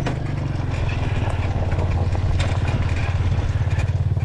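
Dirt bike engine running steadily at low speed, a fast low pulsing, with scattered light clicks and knocks from the bike moving over the trail.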